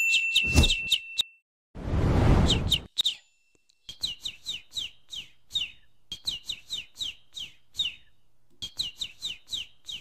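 Subscribe-animation sound effects: clicks and a bell-like ding with a ringing tone at the start, a whoosh about two seconds in, then a cartoon bird's tweet effect, short falling chirps repeating two to three times a second to the end.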